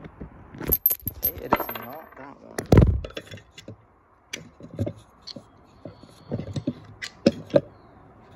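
Metal hand tools clinking and rattling as hex sockets are handled and sorted through, in a string of sharp clicks with some brief metallic ringing. A loud handling thump comes just before three seconds in.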